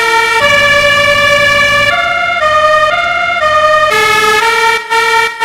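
Melodica (pianika) playing a slow melody of held, horn-like notes in imitation of a 'telolet' Basuri bus horn, the pitch stepping to a new note about every half second, with short breaks between notes near the end.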